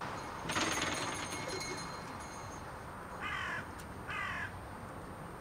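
A shop-door bell jangles as the door opens, ringing out and dying away over about a second and a half, then a crow caws twice, each call about half a second long.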